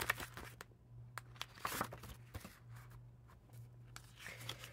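Faint rustling and light clicks of paper and frosted-plastic planner inserts being handled, over a steady low hum.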